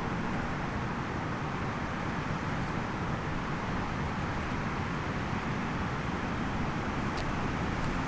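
Steady wind noise, an even low rumble without pitch, with a faint click about seven seconds in.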